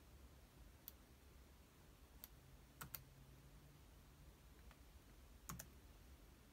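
A handful of light, irregularly spaced typing clicks from an iPad as a time is entered into a text box, over near-silent room tone.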